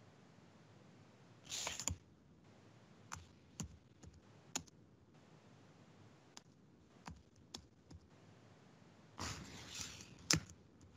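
Scattered clicks of a computer keyboard and mouse, a single click every second or so, with two short noisy bursts, the second ending in a loud click about ten seconds in.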